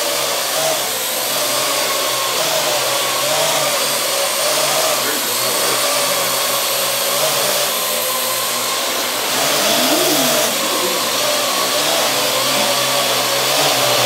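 Parrot AR.Drone quadcopter's four electric rotors whirring steadily in flight, the pitch wavering up and down as the motors speed up and slow down to hold it in the air. It grows a little louder past the middle as the drone comes close.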